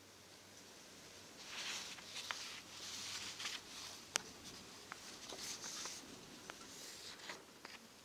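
Sheets of paper rustling as they are handled and turned over, with several sharp crackles among the rustles. It starts about a second and a half in and eases off near the end.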